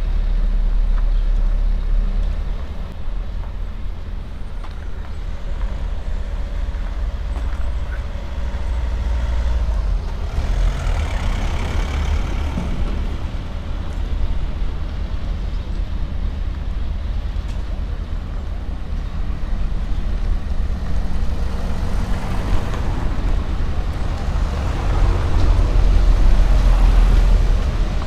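Street traffic: a steady low rumble with cars passing close by, one about ten seconds in and a louder one near the end.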